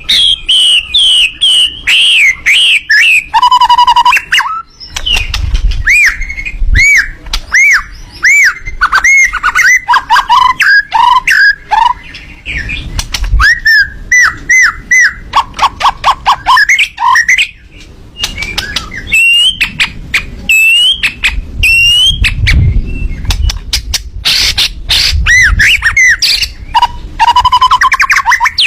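Miwah songbird singing a loud, fast run of rapid-fire chirps and arched whistled notes, repeated in quick series, with a few short pauses. This is the 'tembakan' style of song that kicau-mania keepers use as a master recording for training cage birds. Low rumbles come through briefly at a few points.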